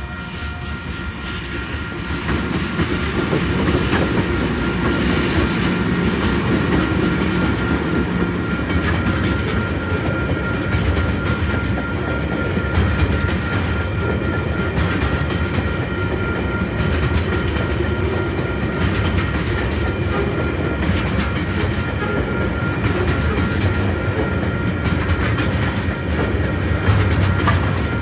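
A Tasrail freight train led by TR-class diesel-electric locomotives runs past close by. The sound builds over the first few seconds, then container wagons roll by with a steady clickety-clack of wheels over the rail joints. A thin steady high tone sounds under the whole passage.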